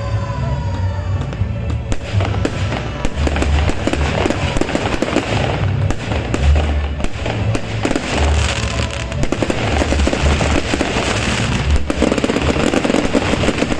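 Aerial fireworks going off in a dense barrage of bangs and crackles, over loud music with a heavy, repeating bass beat.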